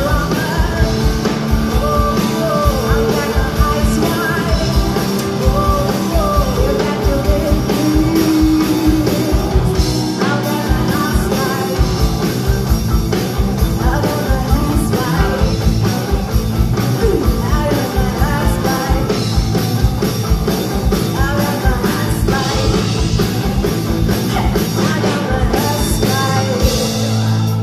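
A live rock band playing: a woman singing lead over electric guitars and drums, with a steady driving beat.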